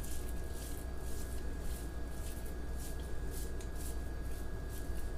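Hands patting and squishing raw ground-beef meatloaf mix into a small loaf, a run of soft, irregular pats, over a faint steady hum.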